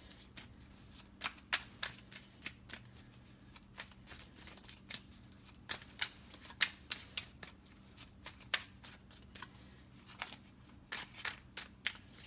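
A deck of tarot cards being shuffled by hand: irregular light snaps and riffles of the cards, with a quicker flurry near the end.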